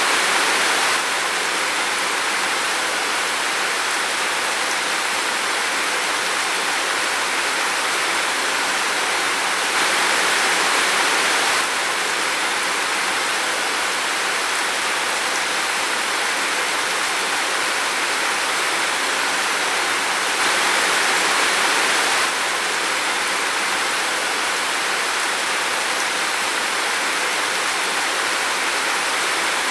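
Steady rain falling as an even hiss, with slightly louder swells about every ten seconds.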